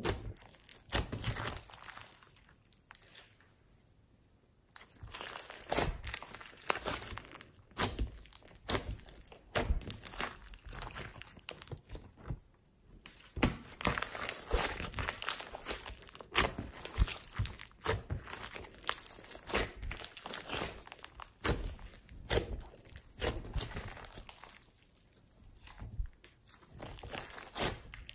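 Hands squishing, stretching and folding slime: irregular sticky clicks, pops and crackles, with a few short pauses.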